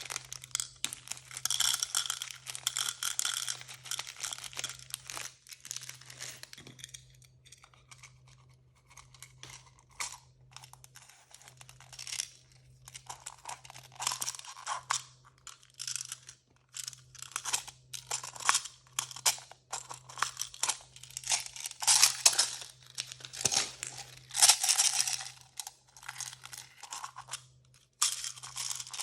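Crinkly blind-bag packaging being handled, crumpled and torn open by hand: irregular crackling bursts. They thin out for a few seconds about a third of the way in, then pick up again with louder tearing.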